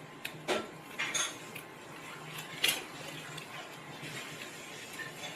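Small clicks, clinks and short scrapes of hand tools against the cracked glass of a phone display being pried off, with one sharper click about halfway through.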